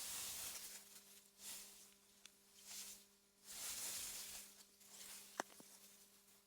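Faint gusts of wind through meadow grass, a soft hiss that swells and dies away several times. A sharp click about five and a half seconds in is the loudest moment, and a faint steady low hum runs underneath.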